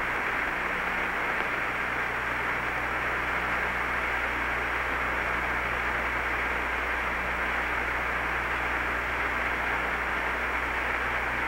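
Steady hiss of an open air-to-ground radio channel between transmissions, with a low steady hum underneath.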